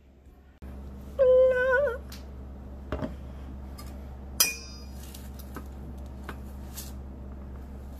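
Wire whisk clinking against a stainless steel mixing bowl: one sharp ringing clink about halfway through, then lighter taps, over a steady low hum. Shortly before, a brief wavering hummed vocal note.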